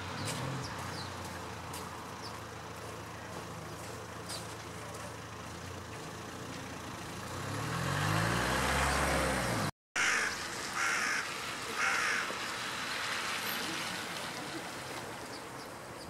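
Steady road traffic hum with a vehicle passing, overlaid by short, high bird chirps. After a sudden cut, three harsh bird calls follow in quick succession.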